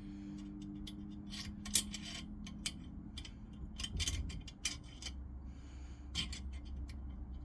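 Scattered small clicks, taps and rubbing from hands handling small metal gun parts and the camera close to the microphone, one sharper click about two seconds in.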